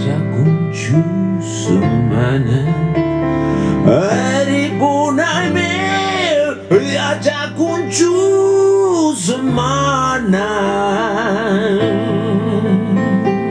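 Male blues singer singing live into a microphone over a band, holding long notes and, near the end, singing with a wide, wavering vibrato.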